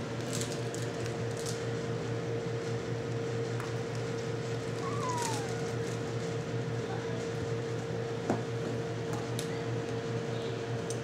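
A steady room hum, with faint ticks and rattles as kittens play around a plastic ball-in-track toy, a short falling squeak about five seconds in, and a single knock about eight seconds in.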